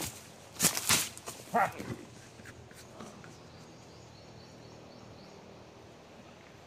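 Rubber-booted footsteps crunching and crackling through dry leaf litter and brush, a few loud strokes in the first two seconds with a brief pitched sound about a second and a half in. After that only a quiet steady forest background.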